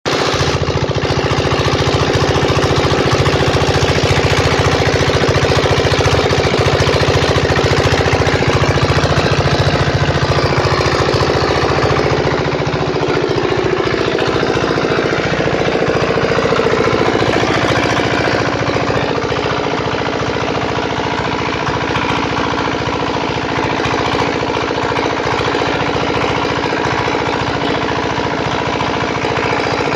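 Small single-cylinder diesel engine of a generator set running steadily, with a rapid, even beat. It is a little quieter from about midway.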